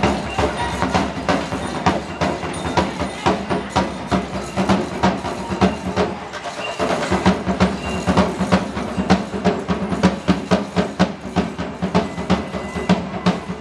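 Percussion music from a parade band: drums struck several times a second in a steady rhythm.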